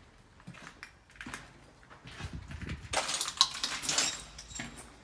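Footsteps walking along a hallway, with scattered crunching and clicking underfoot that grows dense from about three to four and a half seconds in.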